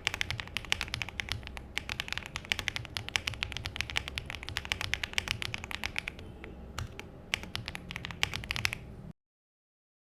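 Typing on a mechanical keyboard fitted with HMX Poro switches: a fast, dense run of keystrokes that thins out about six seconds in and stops abruptly about nine seconds in.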